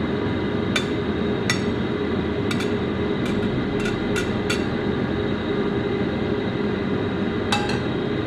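Slotted metal spatula clinking against a ceramic plate and a steel wok as stir-fried food is scraped onto the plate: several sharp clicks in the first half and two more near the end, over a steady low rumble.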